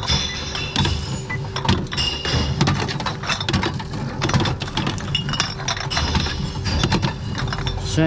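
TOMRA reverse vending machine taking in glass bottles: a steady motor hum from the intake rollers under repeated clinks and clatters of glass as the bottles are fed in and moved through the machine.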